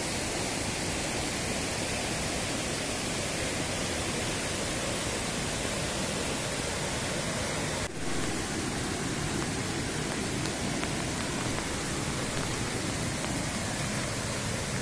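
Steady rushing hiss of a jungle stream and falling rain, even throughout apart from a brief dip about eight seconds in.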